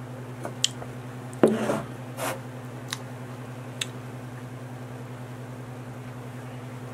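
About six short, soft sticky squishes and clicks from a chunk of moist chocolate fudge cake handled in the fingers, the loudest about one and a half seconds in, over a steady low electrical hum.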